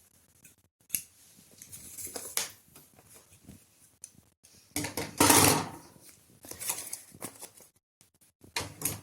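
Rummaging for a pair of scissors among household things: scattered clicks, knocks and small clattering sounds, with a louder rustling clatter about five seconds in.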